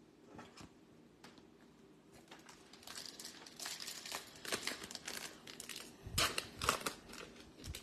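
Crinkly plastic trading-card pack wrapper being handled and torn open. There are a few light crackles at first, then a dense run of crinkling that is loudest about six seconds in.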